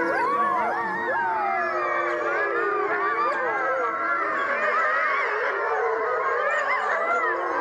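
A pack of wolves howling in chorus, many voices gliding up and down in pitch and overlapping one another.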